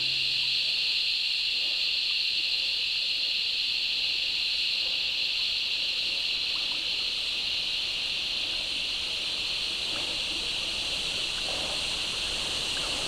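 Outdoor bush ambience: a steady high-pitched hiss, with a few faint soft sounds underneath near the end.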